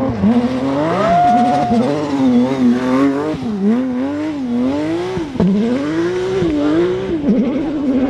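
Porsche 911 GT3 RS rally car's flat-six engine revving hard as the car approaches, passes and pulls away, its pitch climbing and then dropping sharply over and over.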